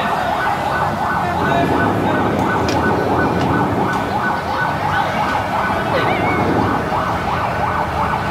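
Fire engine siren sounding continuously, a quick yelping sweep repeating several times a second.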